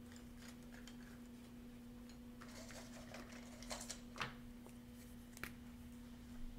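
Faint steady hum with a few light clicks and taps, mostly in the second half, as objects are handled on a desk.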